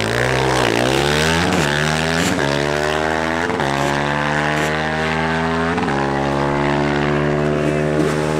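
Drag-racing sport quad ATV engine at full throttle, launching off the line and running down the strip, its note breaking and dropping at each of several quick gear changes.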